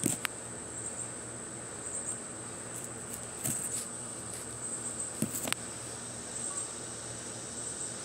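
Insects trilling steadily at a high pitch, with a few sharp clicks or knocks near the start and about halfway through.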